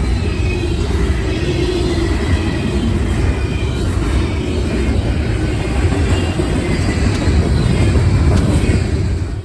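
Train rolling past with a steady, loud rumble of wheels on rail.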